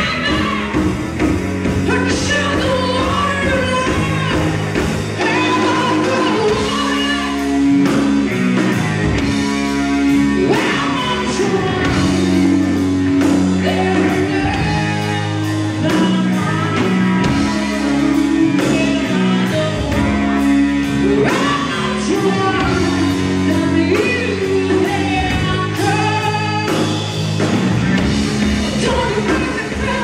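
Live rock band playing: a female lead singer sings over electric guitar, electric bass and a drum kit.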